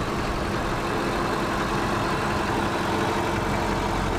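Lexus LS 4.6-litre 1UR-FSE petrol V8 idling steadily under the open bonnet. It runs very quietly and smoothly, the sound of a healthy engine.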